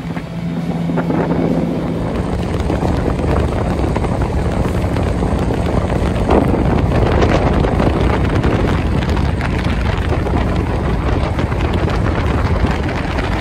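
Jet boat underway on a river: steady engine and water-jet noise, with wind noise on the microphone.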